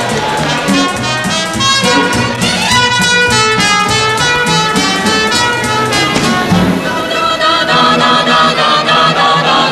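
Lively cartoon score led by brass, with a trumpet playing a quick run of notes.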